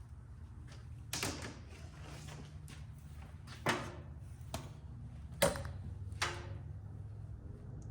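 Five sharp knocks spread over several seconds, the loudest about two-thirds of the way in, with a low steady hum underneath: workshop handling noise.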